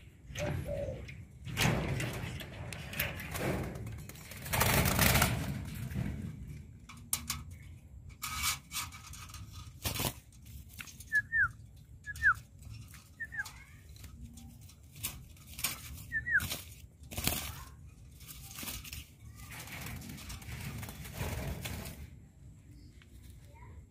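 Rustling and knocks from a wire bird cage and its cloth cover being handled. A few short, high chirps from a bird come through in the middle.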